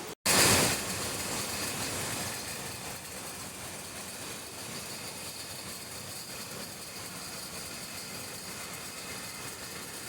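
Brewery plant machinery running steadily, a dense mechanical noise with a few faint high steady tones. About half a second in, a loud hissing rush stands out and dies away over the next second.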